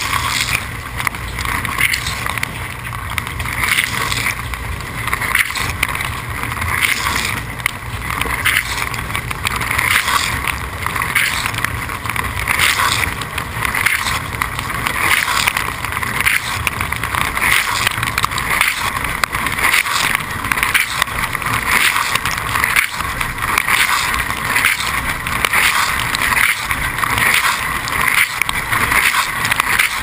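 Dishwasher in its wash cycle: water jets spraying and splashing over the racks and dishes, a steady hiss with uneven surges, and a low hum underneath.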